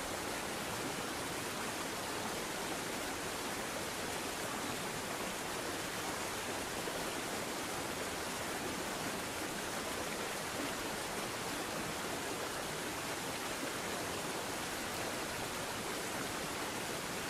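A steady, even hiss with no change or events in it.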